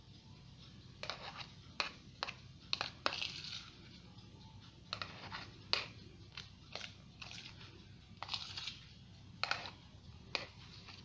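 A spoon scraping and tapping against a plastic bowl and aluminium foil baking cups as crumbled cheese is spooned on: an irregular string of short clicks and brief scrapes.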